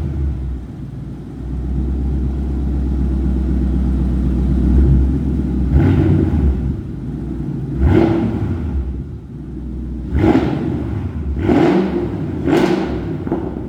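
New Edge Mustang GT's 4.6-litre V8 idling with a steady rumble and blipped five times, each rev rising and falling quickly, the last three close together.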